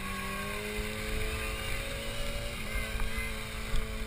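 Engine of an off-road 4x4 running as it drives through the mud course, its revs climbing gently for the first couple of seconds and then dropping back, with wind rumbling on the microphone.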